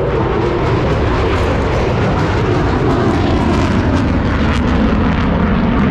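Loud aircraft engine noise from an aircraft flying past, its pitch sliding slowly downward as it goes by.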